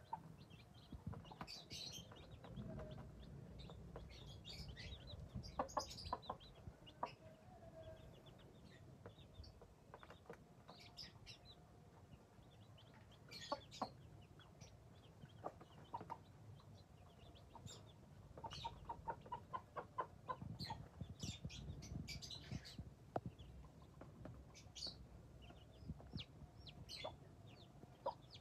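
Broody hen clucking softly while her young chicks peep as they feed, with a quick run of clucks about two-thirds of the way in. The short, high peeps come scattered throughout.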